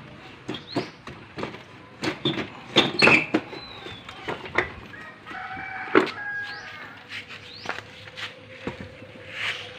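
Metal clanks and knocks as a Honda CRF150 engine is worked loose and lifted out of its frame by hand. A chicken calls in the background about halfway through.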